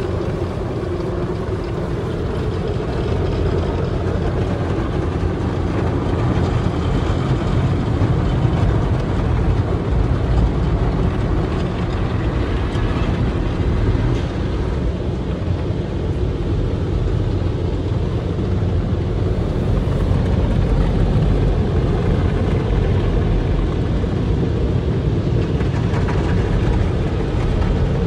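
High-pressure water jets of a touchless car wash spraying the car's windshield and body, heard from inside the cabin: a steady, loud rush with a deep rumble underneath.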